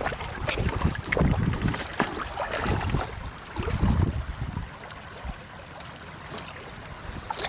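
Water sloshing and splashing in irregular surges, with low rumbles of wind on the microphone; it eases off about five seconds in.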